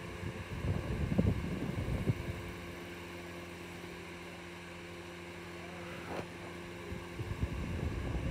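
Steady low electrical hum, with stretches of low rumbling noise on the microphone about a second in and again near the end.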